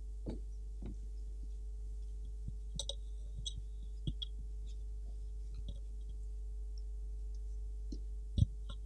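Lull in a lecture hall: a steady low hum with scattered faint clicks and knocks, and one louder thump near the end.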